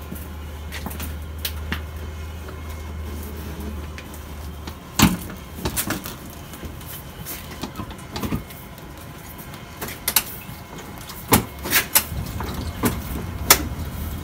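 A string of sharp knocks and clicks from hands working at a motorcycle's passenger seat, backrest and leather saddlebag. The loudest knock comes about five seconds in, and several more follow close together near the end. A low steady hum runs under the first few seconds and comes back near the end.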